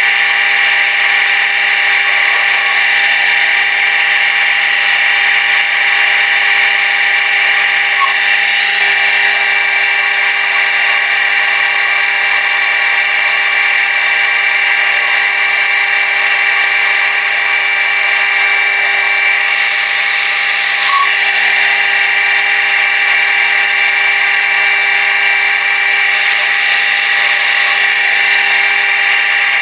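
Metal lathe running steadily while turning a small steel sleeve, giving a constant machine whine made of several steady tones.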